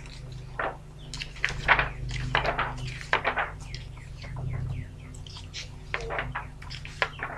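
Pages of a paper cross-stitch pattern book being turned and handled: a quick run of rustles and flips, over a steady low hum.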